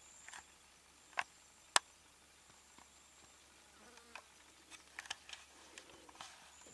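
A Nile monitor digging in sand gives scattered sharp clicks and scratches; the two loudest clicks come a little over a second in, and a busier run of scratches comes in the second half. Behind them an insect trills high and thin, coming and going.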